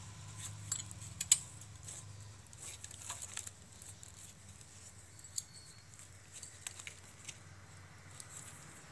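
Scattered clicks and small knocks of hands handling a motorcycle headlight wiring harness, with wires and plastic connectors being moved and fitted. The sharpest click comes about a second in.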